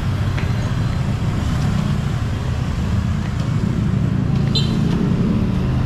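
Street traffic: motorcycle and car engines running past in a steady rumble, with a brief high squeak about four and a half seconds in.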